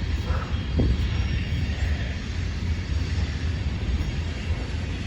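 A long coal-loaded freight train rolling past, a steady low rumble that does not let up.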